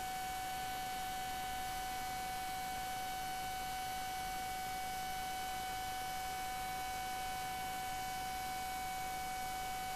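Steady electrical whine with fainter higher tones over a constant hiss: the background noise of the recording or sound system while no one speaks.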